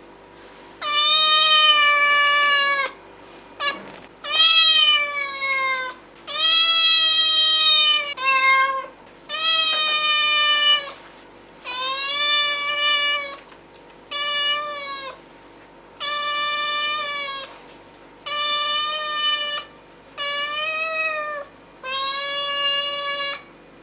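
A domestic cat meowing loudly over and over: about a dozen long, drawn-out meows, each one to two seconds long, coming roughly every two seconds.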